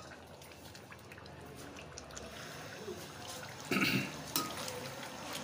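Chicken, tomatoes and oil simmering in a karahi with a quiet, steady bubbling, the stove just turned up to high. There is one brief louder sound about four seconds in.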